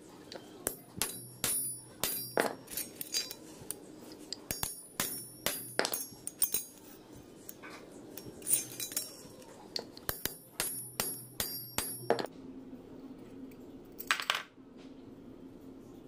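Cut steel latch pieces clinking and tapping against a steel plate as they are handled and lined up: runs of sharp metallic clicks, each with a brief ring. The clinking stops about three-quarters of the way through.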